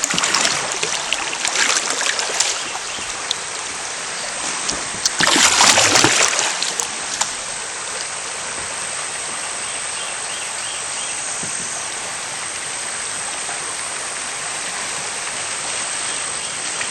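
Shallow bayou water running and rippling over a low riffle, with a louder stretch of splashing about five seconds in.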